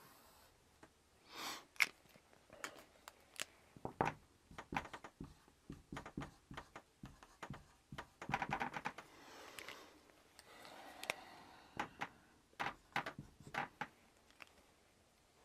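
Marker writing on a whiteboard: quick irregular taps of the tip against the board, with a few longer scratchy strokes.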